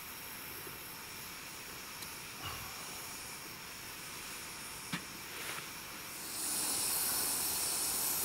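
Faint steady hiss with a single small click about five seconds in. About six seconds in a louder, higher sizzling hiss starts: a redfish fillet grilling on a wire rack over the campfire.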